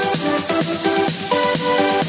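Background electronic music with short melodic notes over a steady beat.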